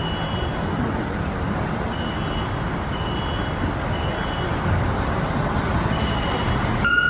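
A building fire alarm sounding high-pitched beeps in groups of three, repeating about every four seconds, over a steady rumble of street traffic. Right at the end a fire truck's siren starts.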